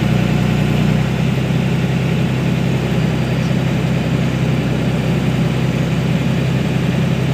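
Diesel engine of a Hitachi crawler excavator running steadily at idle with a low, even drone.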